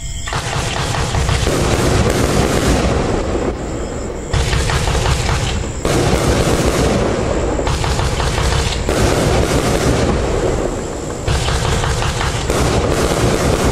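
Iskra SPLUWA 42-shot, 25 mm fireworks cake firing: a rapid, continuous run of launch thumps and aerial bursts, easing briefly twice before picking up again.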